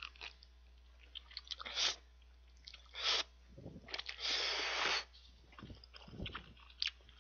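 A man slurping up thick, kalguksu-like instant ramen noodles from chopsticks and chewing them. It comes as short wet mouth clicks and smacks, with one longer slurp of about a second just past the middle.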